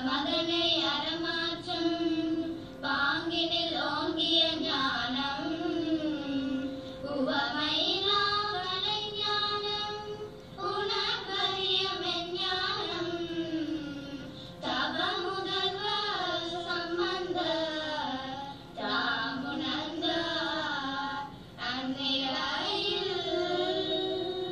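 Young girls singing a devotional hymn together in sung phrases a few seconds long, with short breaks between them, over a steady drone.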